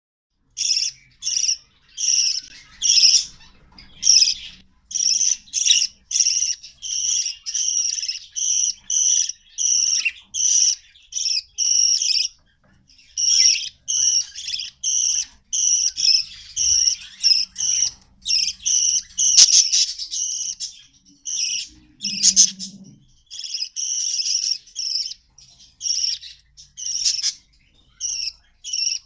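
Budgerigars chirping in a cage: a steady run of short chirps, about one to two a second, one after another with brief gaps.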